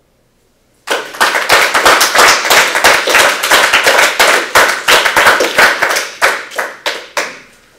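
A small audience clapping, setting in suddenly about a second in, then thinning out and dying away near the end.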